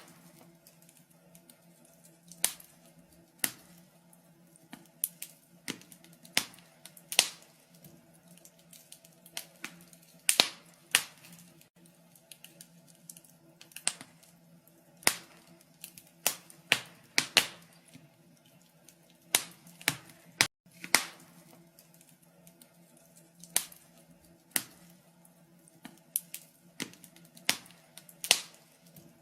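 Wood fire burning in a fireplace, crackling with irregular sharp pops and snaps, about one to three a second.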